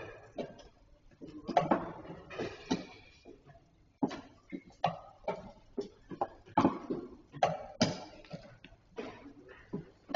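Chess pieces clacking down on boards and chess clock buttons being pressed during tournament play: a scatter of short, sharp clicks and knocks, several a second, in a small hall.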